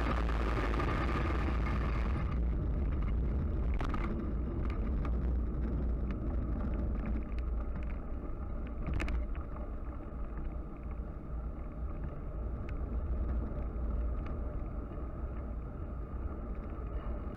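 Road noise from a camera riding on a bicycle on tarmac: a steady low rumble of tyres and wind on the microphone, with a couple of sharp clicks.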